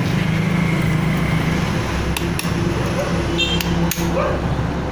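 A few sharp metallic clicks and clinks of a socket tool working on a motorcycle's clutch hub, over a steady low hum of background noise, with faint voices.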